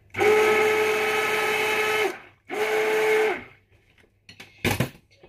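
Stick blender running in two bursts, a long one and then a shorter one, in a bowl of cold-process soap batter, blending it up. A single sharp knock near the end.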